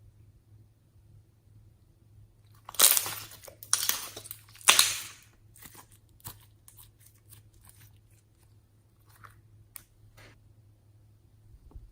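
Crunching and crackling as things are crushed and mixed into slime: three loud crunchy bursts a few seconds in, then a run of smaller crackles and clicks.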